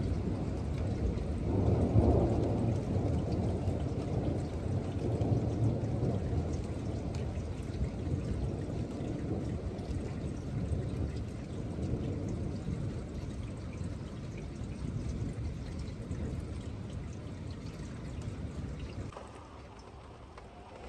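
Long rolling thunder with rain falling, loudest about two seconds in and swelling again a few seconds later, then slowly dying away. It drops off suddenly near the end.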